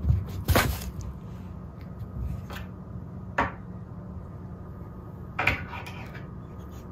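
A cat playing with a fluffy wand toy on a rug beside a wooden table: four short knocks and rustles, the first two close together at the start, the others about three and a half and five and a half seconds in, over a low steady hum.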